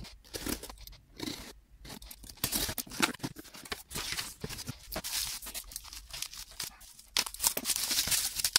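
A cardboard shipping box being torn open by hand: tape and cardboard ripping in irregular scratchy bursts, then crinkling of bubble wrap as the packed item comes out near the end.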